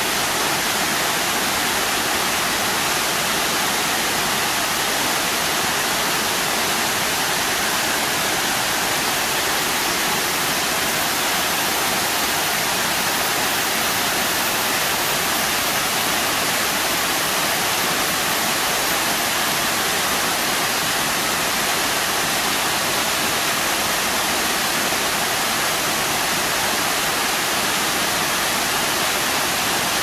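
Pongour Falls, a wide, many-tiered waterfall spilling over rock ledges: a steady, loud rush of falling water, even and unbroken, heaviest in the upper range.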